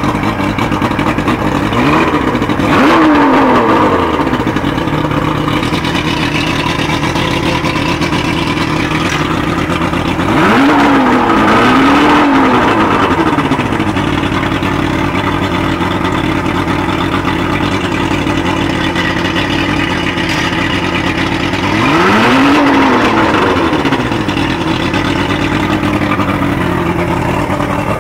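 Johnson V-6 two-stroke outboard motor idling. Three times it is revved briefly and the pitch swings up and back down: near the start, around the middle and later on. It is running well with its faulty VRO fuel pump newly replaced.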